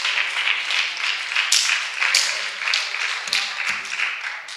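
Church congregation clapping and applauding, the applause fading away near the end.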